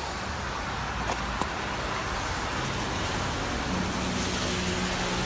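Steady road-traffic noise, with a low, steady engine hum coming in about halfway through.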